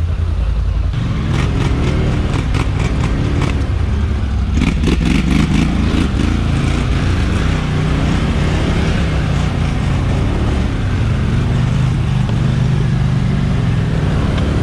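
ATV engine running and revving unevenly up and down under load. Sharp clicks and rattles come in two bunches a couple of seconds in.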